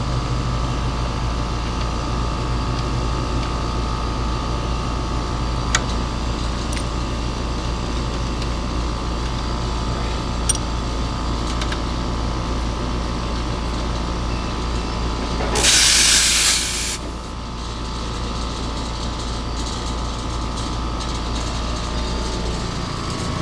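Running HVAC machinery making a steady mechanical hum with a few faint clicks. About sixteen seconds in, a loud hiss bursts out for about a second and a half, then cuts off.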